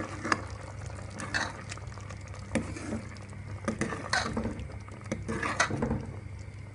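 Metal ladle stirring a simmering coconut-milk egg curry in a metal pot, mixing in added salt, with irregular clinks of the ladle against the pot over faint bubbling and a low steady hum.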